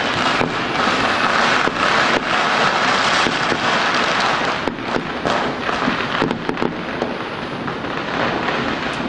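Firecrackers and fireworks going off all across a city in a dense, unbroken crackle of overlapping bangs. About halfway through the din thins a little, leaving more separate sharp cracks.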